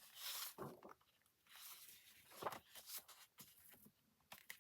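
Sheets of designer series paper rustling and crinkling as they are handled and turned over, in a few short bursts.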